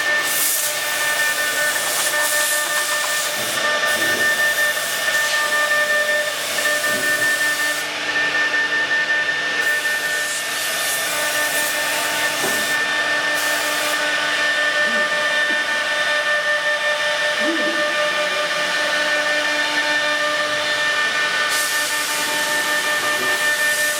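Woodworking CNC router spindle running with a steady whine over a hiss. The hiss thins out for a while about eight seconds in and again through the middle.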